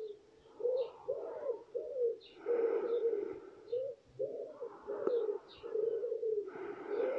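A pigeon or dove cooing, phrase after phrase of low, arched coos, with faint chirps of small birds above.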